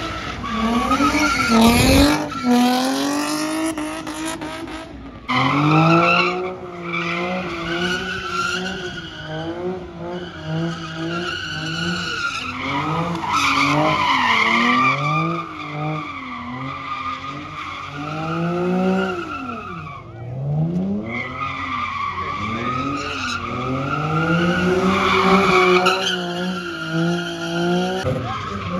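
Cars doing donuts: engines revving up and down in repeated waves while the rear tires squeal and skid continuously on the asphalt.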